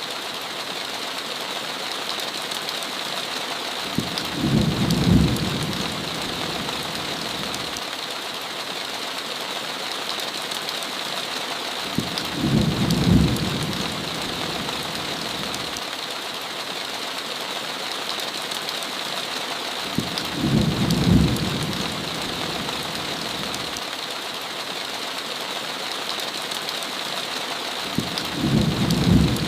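Heavy rain falling steadily, with a low rumble of thunder rolling in four times at even intervals, about every eight seconds.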